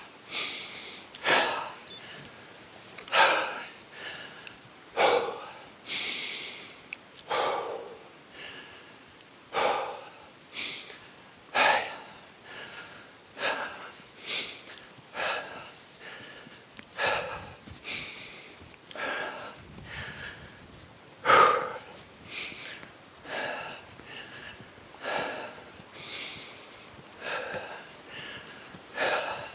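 Heavy, gasping breaths of a person out of breath from climbing a steep hill, about one breath every one and a half to two seconds.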